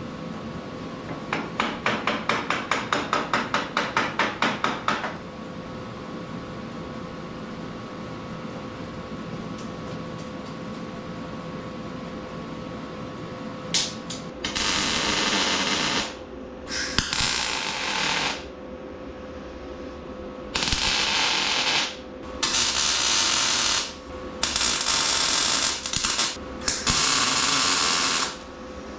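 Welder laying a series of tack welds on steel square tubing: six short welds of a second or two each, hissing and sizzling, in the second half. Earlier comes a rapid rattle of about four to five clicks a second that lasts a few seconds.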